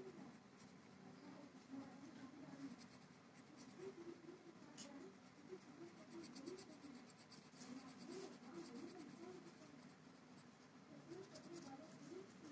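Felt-tip pen scratching faintly on paper in short colouring strokes, with a few light ticks of the tip.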